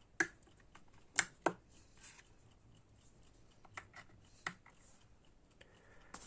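A few light, separate clicks and taps from hands handling a portable Bluetooth speaker and its USB charging cable, with quiet gaps between them.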